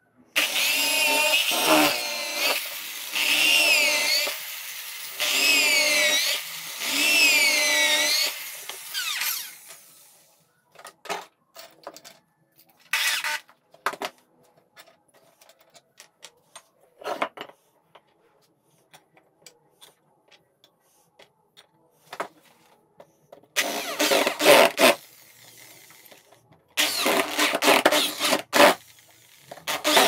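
Electric power tool run in four bursts of a few seconds each, its pitch sweeping up and down as it works. Scattered knocks and taps follow, then two more short bursts of the tool near the end.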